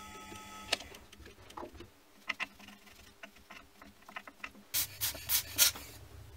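Small metal clicks and taps, scattered and irregular, from tools and small steel parts handled at a milling-machine vise, with a quick run of four sharper clicks near the end. A faint machine hum from the just-stopped mill dies away in the first second.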